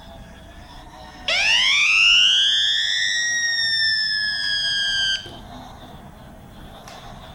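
Toy steam locomotive's electronic whistle sound effect: one loud whistle-like tone, about four seconds long, that swoops up in pitch, sags slightly and cuts off suddenly.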